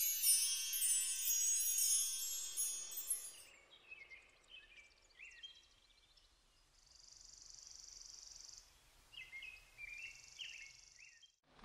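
A bright, shimmering chime flourish fades out after about three seconds. Then come scattered short, faint high chirps and two stretches of a steady high buzzing trill, like nature ambience laid under an intro card.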